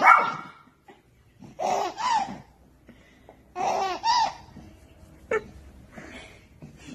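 A baby laughing in short fits, about one every two seconds.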